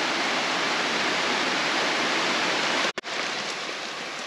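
Steady rain falling on forest trees and foliage, a dense even hiss. It cuts out for an instant about three seconds in and goes on a little quieter.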